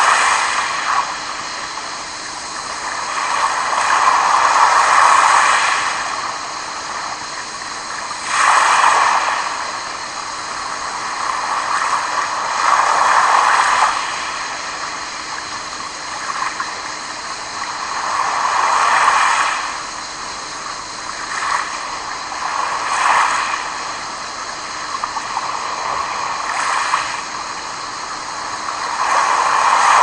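Small sea waves washing onto a pebble shore and around rocks, each surge swelling and ebbing about every four to five seconds.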